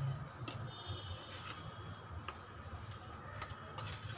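Steel spatula stirring a thick bean curry in a metal kadhai, knocking against the pan in a few short, irregular ticks.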